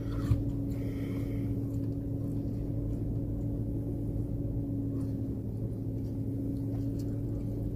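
Steady hum inside a car's cabin, a held mid tone over a deeper one, with one soft click just after the start and a few faint ticks later.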